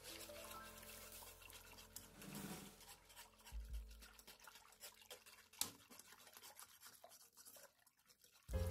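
Faint scraping and swishing of a wire whisk stirring thin cornmeal batter in an aluminium pot, with scattered light clicks of the wires against the pot. Background piano music fades out at the start and comes back near the end.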